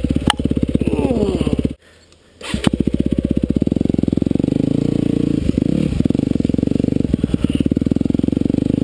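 Yamaha WR250F dirt bike's single-cylinder four-stroke engine running in a steady stream of firing pulses as the bike is ridden along a rough trail. The sound drops away for under a second about two seconds in, then comes straight back.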